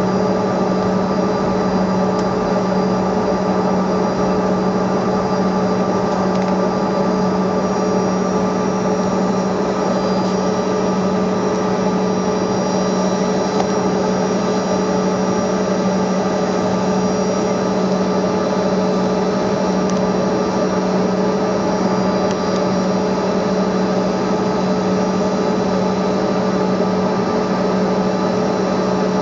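Cabin noise inside a Bombardier CRJ200 regional jet while taxiing: its two rear-mounted turbofan engines running steadily, a constant loud hum with several held tones and a faint high whine.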